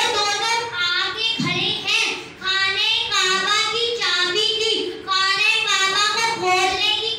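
A boy's voice reciting in a sung, chanted style into a hand-held microphone, in phrases of a second or two with short breaths between.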